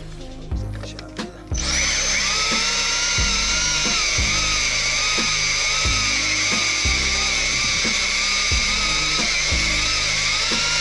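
Background music with a steady beat. About a second and a half in, a corded electric drill with a hole saw starts cutting into the boat's deck and runs steadily over the music, with a high, slightly wavering whine.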